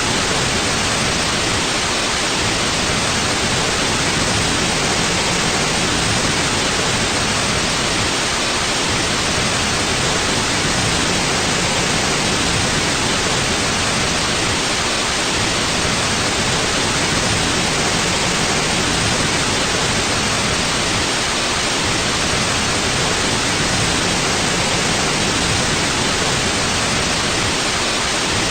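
Steady white noise: an even, unchanging hiss at constant level.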